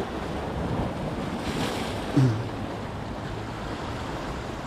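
Wind buffeting the microphone over the steady wash of the sea, with one short, low sound about two seconds in.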